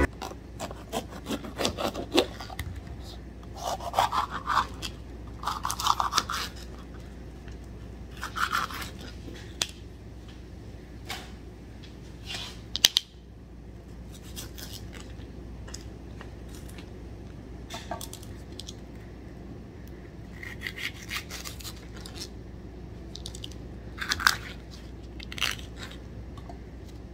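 Kitchen knife slicing green bell peppers on a plastic cutting board: scattered crisp cuts and light taps of the blade on the board, with one sharper knock about halfway through, over a steady low hum.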